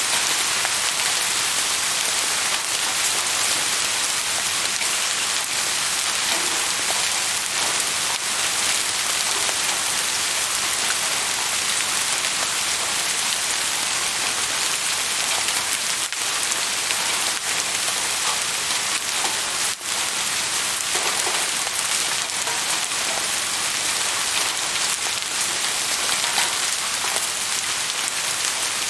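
Steady heavy rain falling and pattering on surfaces, a dense, even hiss, with one brief dip in level about twenty seconds in.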